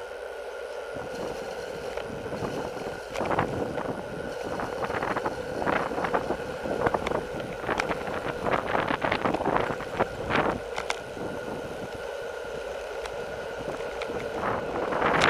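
Wind rushing over the microphone of a camera on a road bike during a fast downhill run, over the bike's tyre and road noise and a steady hum, with irregular gusts and knocks between about three and eleven seconds in.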